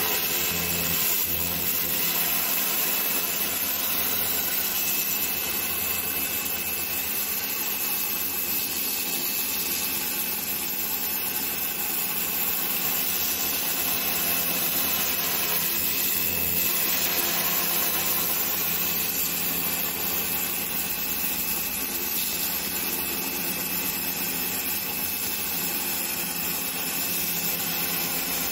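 Pressure washer running steadily, its high-pressure spray hissing across the slats of a wooden table. The motor's hum is even throughout, with no breaks.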